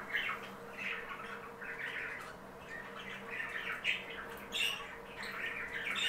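Pet budgerigars chattering, a running string of short chirps and squawks, over a faint steady hum.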